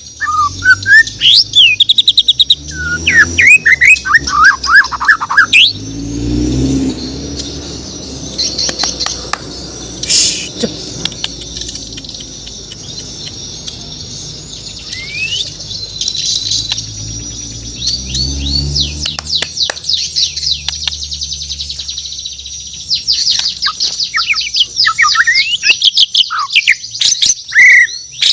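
A Bornean white-rumped shama (murai batu) singing: loud, varied whistled phrases with quick rising and falling notes and fast rattling trills, busiest near the start and again in the last few seconds. A low rumble sounds in the background twice.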